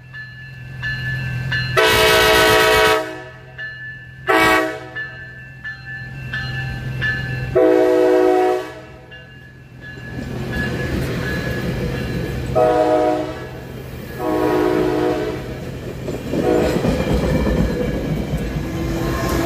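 Coaster commuter train's horn sounding a series of long and short blasts as it approaches a grade crossing, over the crossing's steady warning bell. From about ten seconds in, the rumble of the passing cars' wheels on the rails builds under the horn.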